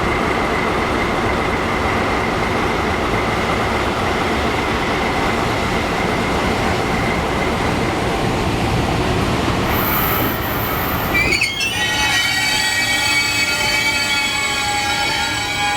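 A locomotive-hauled train of new Seibu 30000 series cars passing, with a steady rumble and clatter of wheels on rail. About eleven seconds in the sound changes sharply to several high, steady squealing tones from the wheels on the rails.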